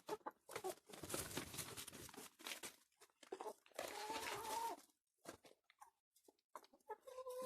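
Laying hens pecking at feed, with short scratchy noises and a hen's clucking call about four seconds in. One hen keeps making an odd noise that its keeper takes for either sneezing or choking on food.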